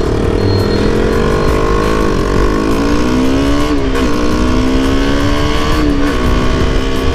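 KTM RC single-cylinder sport-bike engine heard from the rider's seat, pulling under acceleration. Its note climbs and drops back at about three gear shifts, over heavy wind noise.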